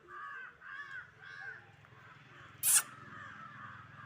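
A crow cawing in repeated harsh calls about every half second, loudest in the first second and a half and then fainter. A single brief, sharp noise about two and a half seconds in is the loudest sound.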